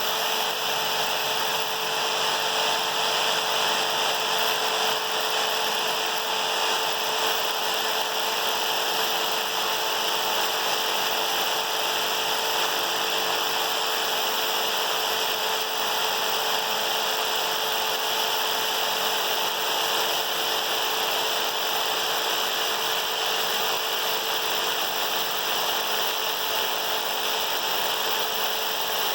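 Jigsaw fitted with a new Diablo blade, running steadily as it cuts through a wooden board and a tough knot, with a constant motor hum under the sawing.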